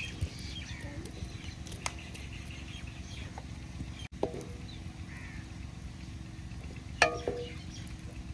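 Curry at the boil in a kadhai over the fire, a steady low rumble, with faint bird calls in the background. About seven seconds in, the spoon strikes the pan once with a sharp clank and a short ring.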